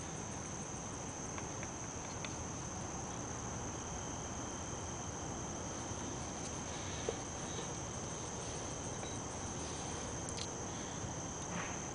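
Quiet steady background with a thin, high, steady tone, and one faint click about seven seconds in as a new brake pad is handled and fitted into the caliper bracket.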